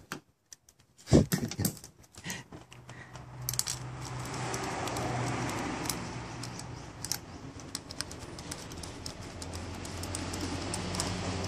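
Socket and extension clicking and clinking against metal as the bolts holding an ignition coil to the engine's cam cover are tightened, with a sharp knock about a second in. A steady rushing noise with a low hum comes in about four seconds in.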